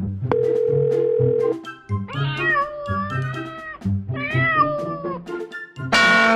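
Two drawn-out cat meows, the second shorter, over upbeat background music. A steady beep about a second long comes before them, and a short loud buzzy blast sounds near the end.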